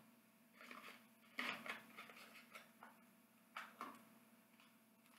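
Faint handling of product packaging: a cardboard box and plastic lotion tubes being set down and picked up, giving a handful of short taps and rustles, the loudest about a second and a half in.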